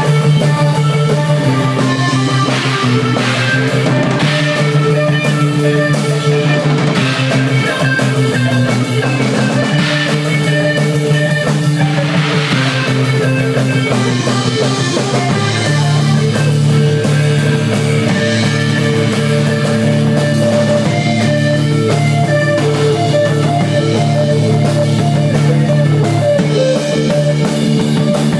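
Live rock band playing loud: electric guitar over bass and drum kit.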